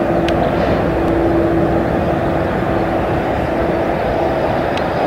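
Boeing 777 on final approach, its twin jet engines droning steadily with a held tone, mixed with wind noise on the microphone.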